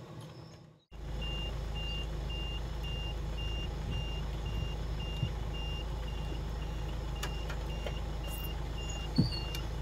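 A high electronic beep repeating about twice a second over a steady low rumble, starting about a second in.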